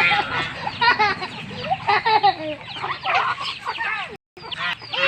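Chickens clucking, many short calls overlapping, broken by a brief silent gap about four seconds in.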